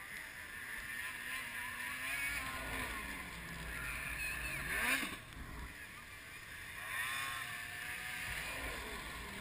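Snowmobile engine running at high revs as the sled races up a jump ramp and flies through the air. Its pitch rises and falls, loudest about five seconds in as it passes close. Another snowmobile engine revs up and falls off again a couple of seconds later.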